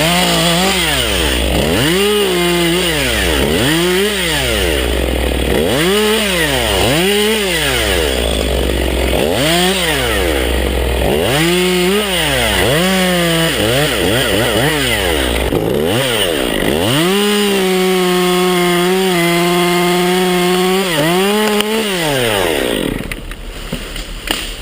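Two-stroke chainsaw revving up and down over and over, in quick throttle blips about every second and a half. Near the end it is held at high revs for a few seconds, then dies down.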